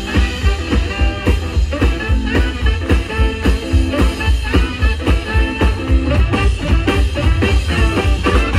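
Live swing band playing the opening of an up-tempo song, with a steady, driving beat.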